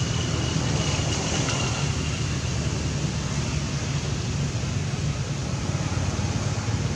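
Steady outdoor background noise: an even low rumble with a hiss above it, without clear breaks or distinct calls.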